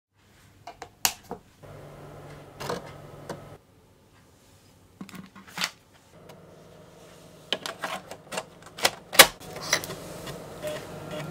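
Amiga 1200's internal floppy drive working a disk: irregular clicks and knocks from the drive head stepping, over the low hum of the drive motor, which spins up twice.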